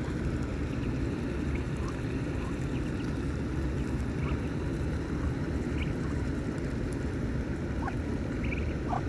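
Steady low rumble of wind on the microphone, with a few faint short peeps from Muscovy ducklings feeding.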